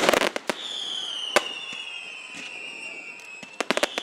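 Fireworks finale: a cluster of sharp bangs at the start and another bang about a second and a half in, under a long whistle that slowly falls in pitch, then a fast run of crackling pops near the end.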